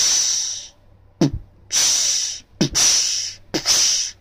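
Beatboxed snare drill: a lip-popped 'p' followed by a sharp 's' hiss, done three times after an opening hiss, with the pop and hiss brought closer together each time until they nearly merge.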